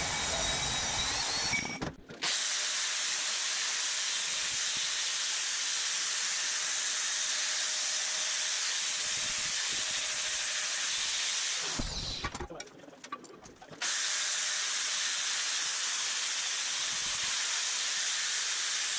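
A portable band saw cuts through steel tubing for about the first two seconds. An angle grinder with a flap disc then grinds the cut tube end with a steady high hiss. It winds down about twelve seconds in, starts again a couple of seconds later, and winds down again at the end.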